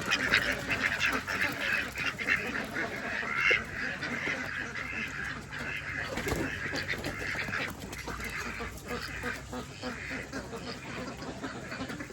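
A group of ducks quacking, many short overlapping calls, busiest in the first few seconds and thinning out after, with one louder call about three and a half seconds in.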